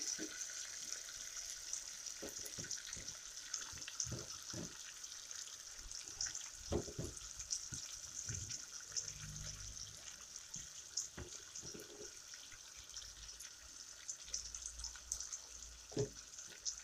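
Chopped onion, garlic, ginger and bay leaves sautéing in hot oil: a steady sizzle with small crackles. A ladle knocks and scrapes against the pan a few times.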